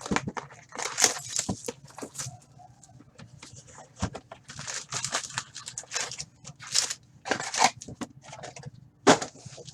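Plastic wrapping crinkling and tearing in quick irregular bursts as a box of trading-card packs is opened.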